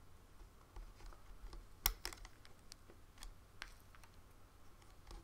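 Faint, irregular clicks and taps of rubber loom bands being stretched onto the plastic pins of a Rainbow Loom, the sharpest about two seconds in.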